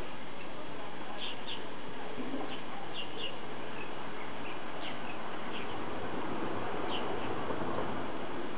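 Small birds chirping in short, scattered calls over a steady background hiss.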